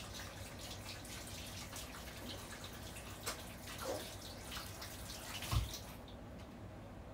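Water running from a kitchen tap, with a few light knocks, and a dull thump about five and a half seconds in. The running water stops about six seconds in.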